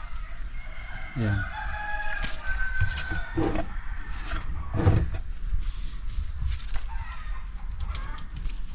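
Rooster crowing once, one long call starting about a second and a half in, with a couple of dull knocks after it.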